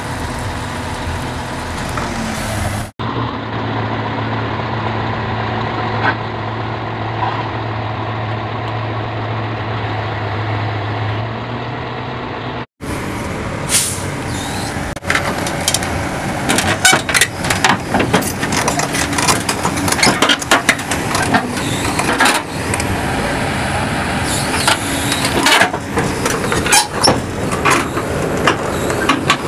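Heavy truck running, its engine a steady low drone, cut off abruptly twice as the footage changes. In the later part, many sharp clicks and rattles sound over the engine.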